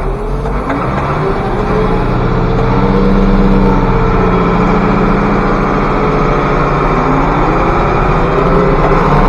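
International 1086 tractor's turbocharged six-cylinder diesel engine running, getting louder and rising in pitch over the first few seconds as it speeds up, then holding steady and loud.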